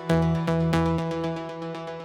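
Tropical house music: sustained synthesizer chords over a held bass note, with evenly spaced plucked hits, fading down over the two seconds.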